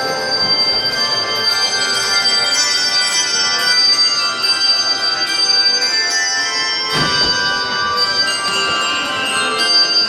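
A handbell choir playing: many tuned handbells struck in turn and together, their notes ringing on over one another. There is a short knock about seven seconds in.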